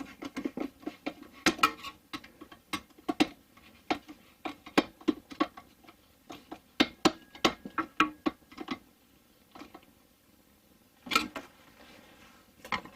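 Irregular clicks and light metallic clatter of a clamp being worked onto a diesel heater's exhaust pipe by hand, dense at first and thinning out about two thirds of the way through, with a short burst of clicks near the end.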